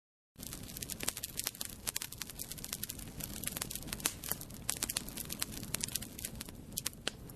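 Fire crackling: many sharp snaps and pops over a steady low rumble. It starts abruptly a moment in, after a brief silence.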